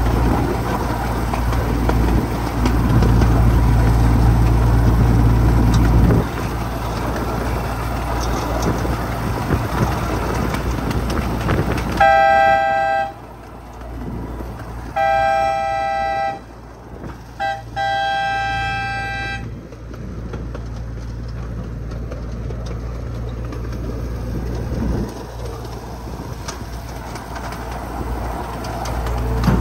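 Miniature ride-on train's locomotive running with a steady low hum. About twelve seconds in, its two-tone horn sounds two long blasts, a short one and a long one, the pattern a train sounds when approaching a grade crossing.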